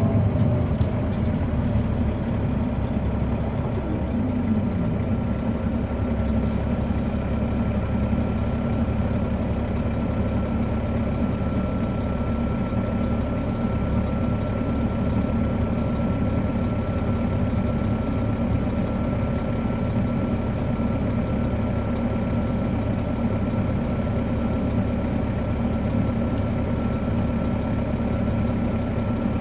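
Caterpillar C13 ACERT diesel engine of a 2007 MCI D4500CL coach, heard from inside the bus, running steadily. A faint steady high whine sits over it, and a brief falling tone comes about four seconds in.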